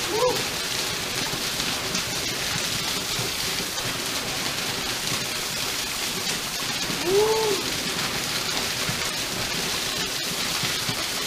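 Waterfall water pouring and splashing steadily, ice-cold mountain water. Two short rising-then-falling voice-like cries break through, one right at the start and one about seven seconds in.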